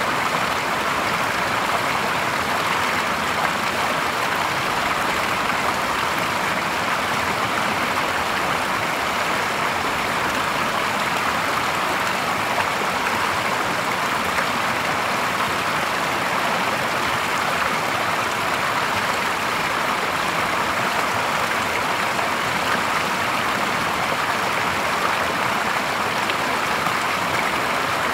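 Water from a small cascade pouring off a rocky bank into a shallow, clear stream, giving a steady, unbroken splashing and rushing.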